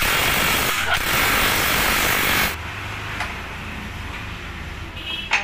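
Cordless impact wrench hammering the hub lock nut tight on a freshly fitted wheel bearing, with a short break about a second in, stopping about two and a half seconds in. A single sharp metal clank near the end.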